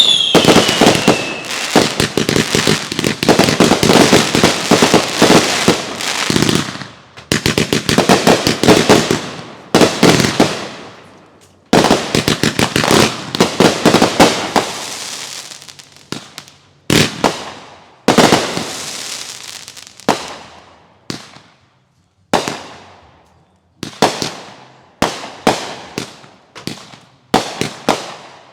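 Fireworks going off in a dense string of bangs and crackles, thinning out into separate bangs with fading tails about halfway through. Just after the start, a whistle falling in pitch fades out.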